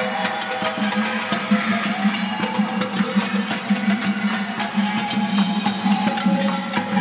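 Metal cookware (stock pots, pans and buckets) beaten with sticks and a wooden spoon as improvised drums, a fast, continuous rhythm of many strikes with steady pitched tones underneath.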